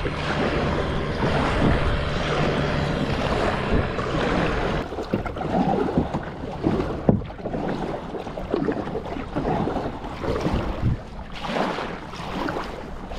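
Kayak paddle strokes splashing in sea water, irregular and starting about five seconds in, with wind buffeting the microphone. A steady low hum runs under the first few seconds and then fades.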